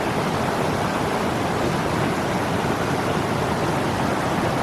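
Forest stream rushing over rocks, a steady, even rush of water.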